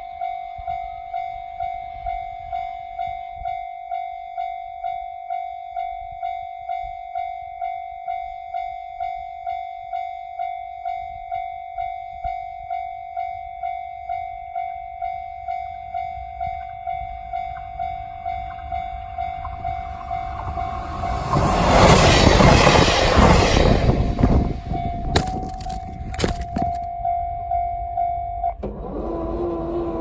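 Japanese level-crossing alarm dinging steadily, about one and a half rings a second. About twenty seconds in, a two-car KiHa 48 and KiHa 47 diesel railcar train passes loudly for a few seconds, followed by sharp clacks of wheels over rail joints. The alarm stops near the end and a steady hum takes over.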